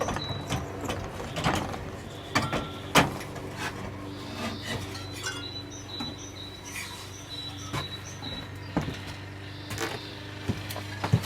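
Irregular metal clinks and knocks from parts being worked on a motorcycle frame during engine removal, over a steady low hum.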